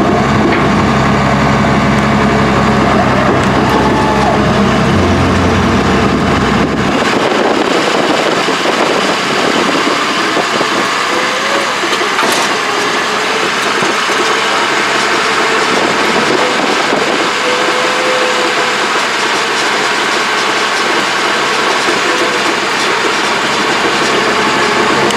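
Heavy diesel equipment engine running steadily and loudly. A deep low rumble drops away about seven seconds in.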